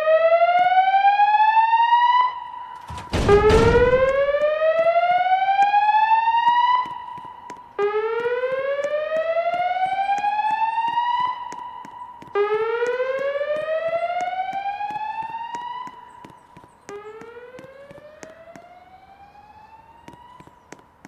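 Fire alarm voice-evacuation speaker-strobes (Wheelock E-50 wall and E-60 ceiling units) sounding the whoop evacuation tone: a rising sweep that ends in a short held tone, repeated about every four and a half seconds, with the later whoops growing fainter. A thump about three seconds in.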